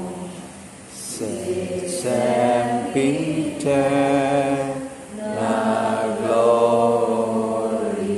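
Voices chanting a slow devotional prayer in long held notes, breaking briefly about a second in and again about five seconds in.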